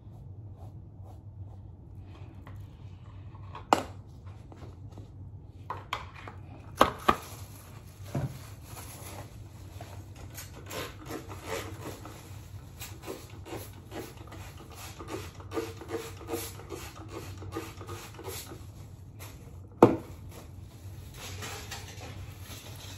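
Handling noises at a table: scattered sharp knocks of items being set down, the loudest near the end, and a long stretch of small clicks, rubbing and scraping as gloved hands work a bleaching mixture through a mannequin's wet hair. A steady low hum runs underneath.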